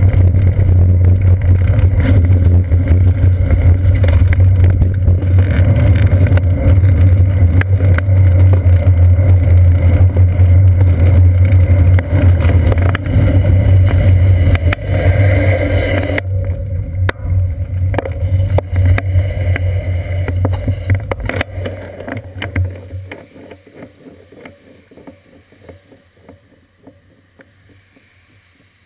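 Steady rumble of wind and wet-road vibration picked up by a bicycle's seat-post camera while riding on a rain-soaked street. It dies away over the last several seconds as the bike slows to a stop.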